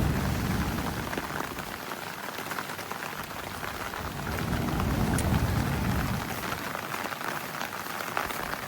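Rain falling steadily, with a low rumble that swells and fades about four to six seconds in.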